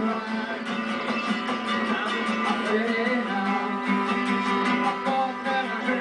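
Irish folk music played live: a strummed acoustic guitar and a mandolin with a jingled frame drum, and a man singing over them.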